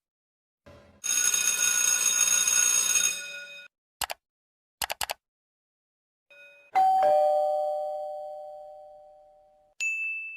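A string of separate sound effects. A harsh buzzing noise runs for about two and a half seconds, then come a few sharp clicks. Then a two-note ding-dong doorbell chime falls in pitch and slowly fades, and a short high ding sounds near the end.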